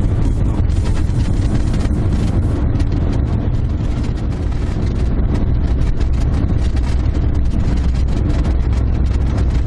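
Steady low rumble of a car driving at speed, heard from inside the cabin: engine and road noise.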